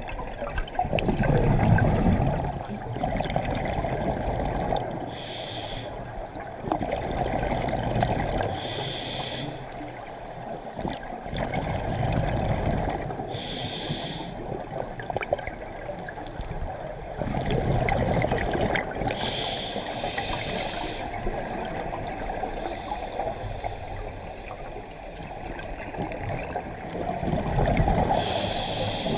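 Scuba diver breathing through a regulator underwater: a short hiss on each inhale and a low bubbling rush on each exhale, repeating every few seconds.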